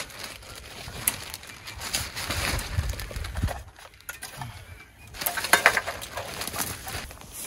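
Plastic carrier bag rustling and crinkling, with feet crunching on dry twigs and leaf litter, as litter is picked up and dropped into the bag. The loudest rustle comes a little past halfway.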